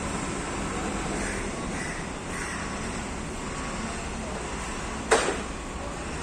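Steady outdoor yard noise, with a few faint bird calls early on and a single sharp knock about five seconds in.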